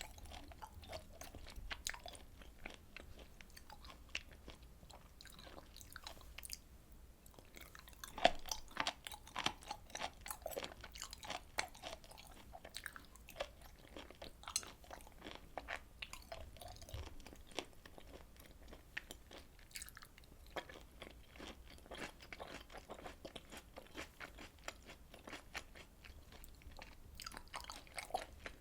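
Close-miked eating sounds: steady wet chewing of grilled beef and pork intestines, with many small clicks and a louder bite about eight seconds in.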